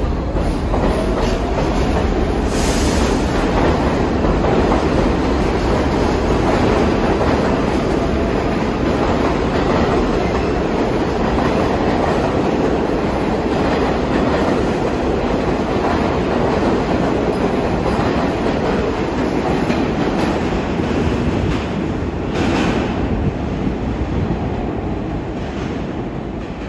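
New York City subway train running through the station, a loud steady rumble of steel wheels on the rails with a few sharp knocks and a pitch rising at the start. The sound eases off in the last few seconds.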